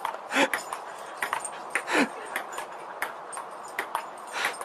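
A puppy giving two short yelps, each falling in pitch, among many light clicks and taps.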